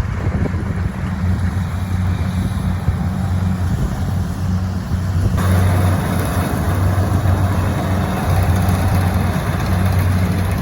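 An engine running steadily with a low drone; about five and a half seconds in, a louder rushing noise joins it.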